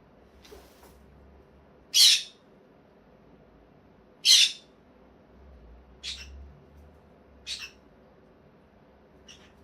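Green-cheeked conure giving short, high squeaks every second or two, about six in all, the two loudest about two and four seconds in.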